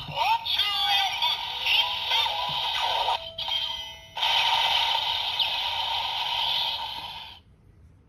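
DX Enkaken Noroshi toy sword playing its normal-mode finisher sound through its small built-in speaker: electronic music and effects with voice calls. It dips briefly to a single held tone about three seconds in, comes back loud, and cuts off about seven seconds in.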